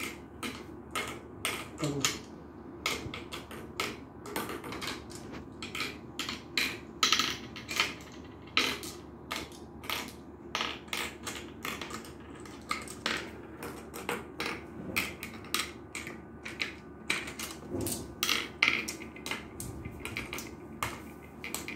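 Marbles dropped one at a time into the wooden pits of a Gurpale (mancala) board as counters are sown around it, giving irregular clicks, a few each second.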